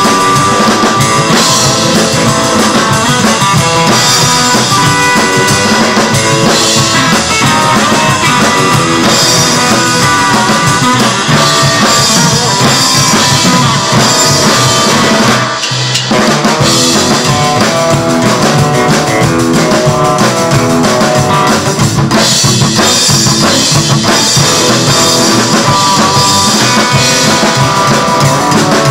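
Live instrumental rockabilly band: an electric hollow-body guitar plays over an upright double bass and a drum kit, with a brief stop about halfway through before the band comes back in.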